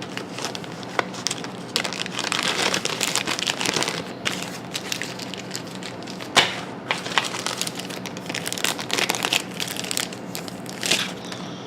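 Plastic packaging crinkling and rustling as board game components are unwrapped by hand, with a few sharper crackles.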